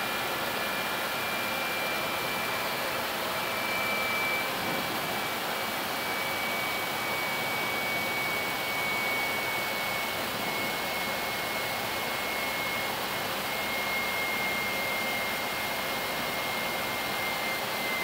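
Airbus A320 flight deck in climb: a steady rush of airflow and engine noise, with a faint high whine that drifts slightly lower in pitch.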